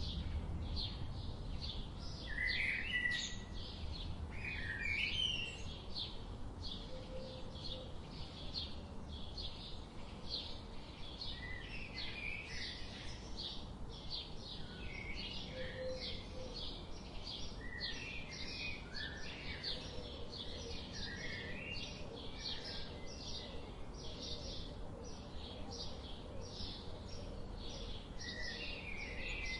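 Birds chirping and calling: scattered short, warbling notes over a high sound that repeats steadily about twice a second.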